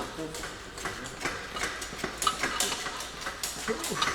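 Irregular light metallic clicks and taps of small engine parts and hand tools being handled and fitted during cylinder head assembly.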